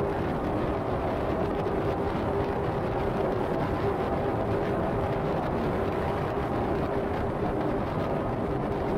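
Steady road noise of a car driving at highway speed: tyre rumble and wind rush with a faint steady hum.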